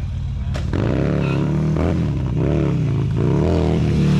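Harley-Davidson motorcycle engine being revved up and down over and over in quick waves during a stunt, then held climbing steadily near the end.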